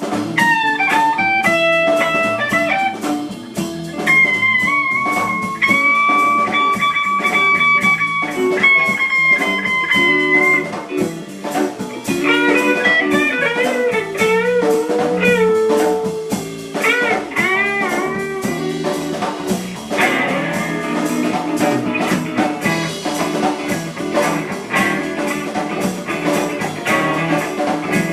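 Instrumental break of a blues song: a lead guitar plays long held notes, quick runs and bent, wavering notes over a steady band accompaniment.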